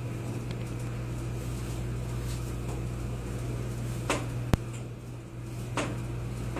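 Chiropractic adjustment: soft rustling movements over a steady low hum, then one sharp, very short click about four and a half seconds in.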